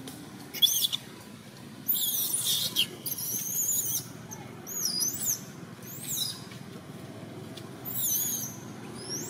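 Baby long-tailed macaque crying: a string of shrill, very high squeals that arch up and down in pitch, coming in short bursts with gaps between them. These are the distress cries of an infant wanting to nurse.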